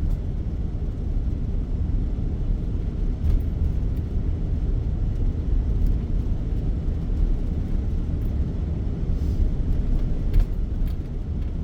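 A van driving at low speed through town: steady low engine and road rumble, with a few faint clicks.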